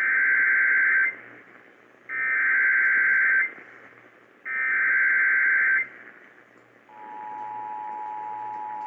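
Emergency Alert System header over AM radio: three bursts of digital data tones, each a little over a second long, followed about seven seconds in by the steady two-tone attention signal. It announces a flash flood warning. A faint hiss runs underneath.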